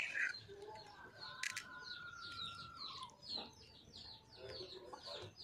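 Small birds chirping outdoors, a quick run of short repeated chirps, several a second, with a faint steady tone behind them that drops in pitch about three seconds in.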